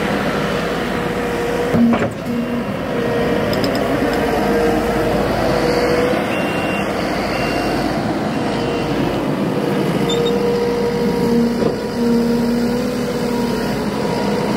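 Kubota SVL95-2s compact track loader running close by, its diesel engine giving a steady drone with a held whining note that fades and comes back. A single sharp knock about two seconds in.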